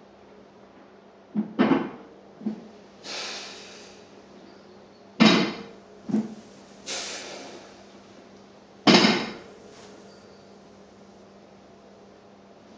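Rubber bumper plates of a loaded barbell thudding onto a rubber gym floor as the hips are lowered between reps, three main thuds a few seconds apart with smaller knocks beside them. Forceful breaths between the thuds.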